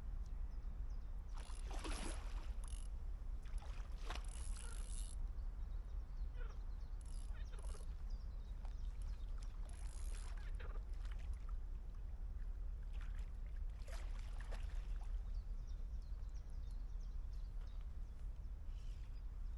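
Water splashing and sloshing in short, irregular bursts over a steady low rumble.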